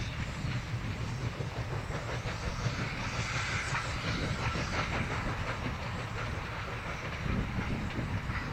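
East Broad Top 2-8-2 steam locomotive No.15 hauling its train of cars along 3 ft narrow-gauge track: a steady rumble with scattered clicks from the wheels and cars, busiest in the middle.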